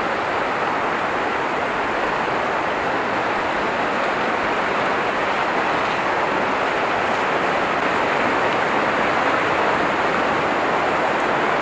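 Steady rush of a fast-flowing river running over stones, growing a little louder near the end.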